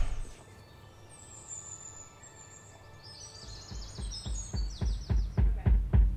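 Birds chirping, with quick high falling calls. A low pulsing musical beat of about four beats a second fades in and grows steadily louder toward the end.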